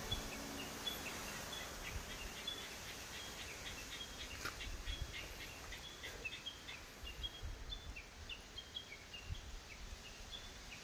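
Small birds chirping faintly: many short, high notes at varying pitches, repeated throughout over a soft, steady background hiss.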